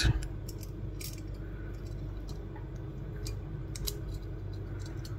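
A few faint, scattered clicks of small plastic and metal parts being pressed into a plastic flip-key fob case by hand, over a steady low hum.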